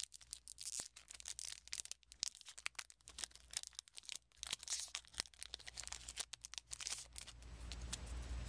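Foil trading-card booster pack being torn open and crinkled by hand: a run of sharp crackles that dies away near the end, leaving a low steady hum.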